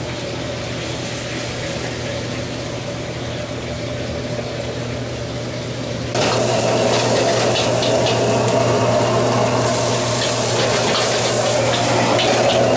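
Steady roar of a commercial wok-burner kitchen. About six seconds in it gets abruptly louder, with hot-wok sizzling and short clinks of a metal ladle against the wok.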